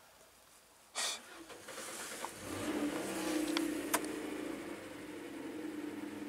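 A car engine running and revving up, settling into a steady hum about two and a half seconds in, after a short sharp sound about a second in.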